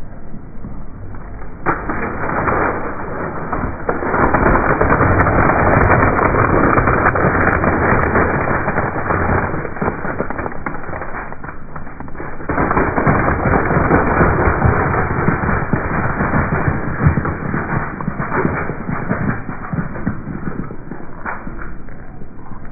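Dry lasagna noodles cracking and crunching under a pickup truck's tire in a dense, continuous crackle, slowed down so it sounds muffled and dull. The crackle swells twice, about four seconds in and again about thirteen seconds in.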